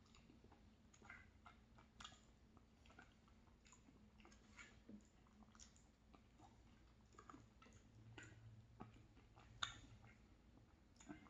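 Faint chewing of ice cream and crumbled almond-raspberry tart: soft, irregular wet mouth clicks, with one sharper click about nine and a half seconds in.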